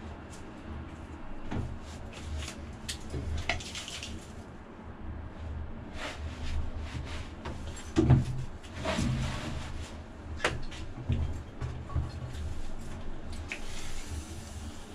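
Scattered knocks, clicks and clatter of hand tools and metal parts being handled and set down, with the loudest knock about eight seconds in, over a low steady rumble.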